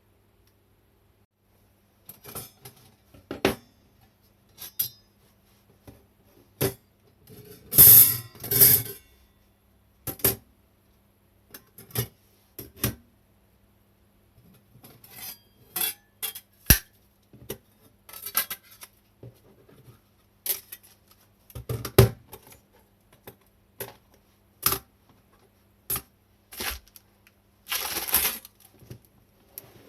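Thin metal panels of a homemade square fire pit being handled: irregular clinks and clanks, with a few longer scraping slides of metal on metal, the loudest about 8 seconds in and near the end.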